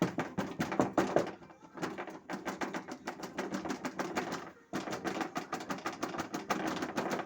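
Rapid rattling and clattering under a Lada Priora, in three quick runs with short breaks between them. It is a loose fog-light connector knocking against the metal engine guard, the cause of what was taken for a suspension knock.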